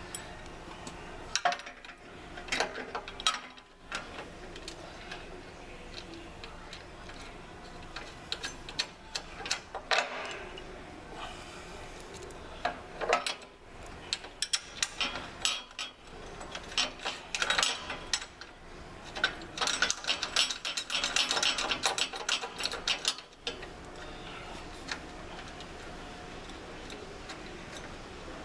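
Metal clicks and ticks of Allen key bolts and spring washers being fitted and turned in to fasten a steel bracket, with a run of rapid clicking about twenty seconds in.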